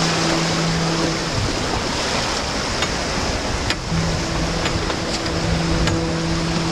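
Boat engine running with a steady low hum under a wash of seawater rushing along the hull.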